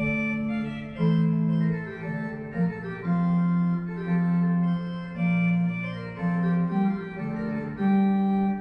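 Organ music from the Ankeruhr clock's built-in organ: a slow tune of held notes, each lasting about a second, over sustained lower notes.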